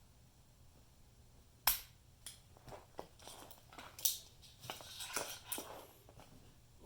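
Freshly repaired 2001 Toyota Tundra door latch assembly being worked by hand to test it: one sharp click about a second and a half in, then a string of smaller clicks and rattles as the latch is set into its closed position.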